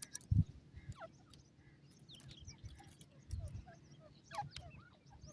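Faint, scattered short bird chirps, with a few dull low thumps.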